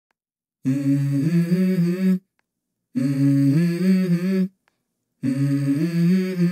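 Wordless humming in the background music: three short melodic phrases, each about a second and a half long, with brief pauses between them.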